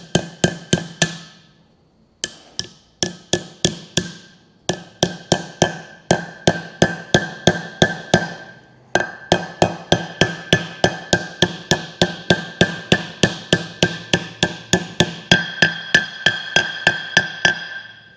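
Hammer tapping a new hub seal into a wheel hub through a flat metal plate: runs of quick, ringing metallic taps, several a second, pausing briefly three times.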